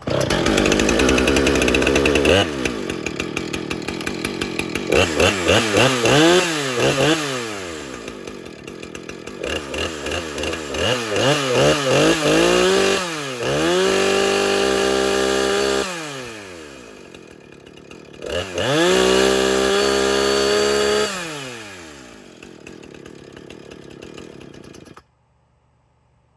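Husqvarna 455 Rancher two-stroke chainsaw engine running and being revved with the throttle: fast at first, dropping about two seconds in, then a run of quick revs rising and falling, two held high revs of a few seconds each, then back to idle. The engine cuts off suddenly near the end.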